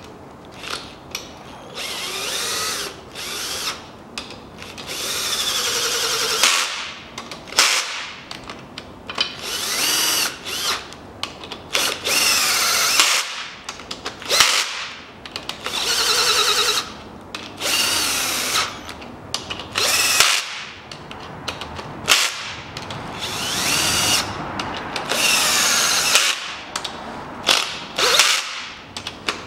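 Cordless power driver running the main bearing cap bolts down into a 4B10 engine block, in about a dozen short runs of a second to a few seconds with a whine that rises and falls in pitch, pausing between bolts.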